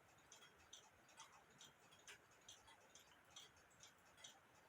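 Faint, even ticking of a clock, a little over two ticks a second.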